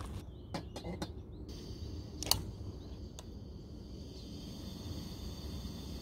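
Small aluminium camping kettle set down on the pot supports of a portable gas stove with a few light metal clinks, then one sharp click about two seconds in and a fainter one a second later, over a steady high hiss.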